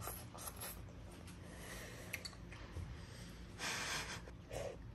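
A child eating udon noodles: faint slurps and breaths through the nose, with one short, louder inhale about three and a half seconds in.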